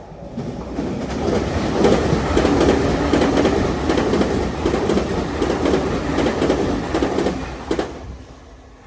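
Tokyu Meguro Line electric commuter train passing a level crossing at high speed. The rumble and rail clatter of the wheels swell within the first two seconds, hold loud, then fade near the end, with a few sharp clicks as the last cars go by.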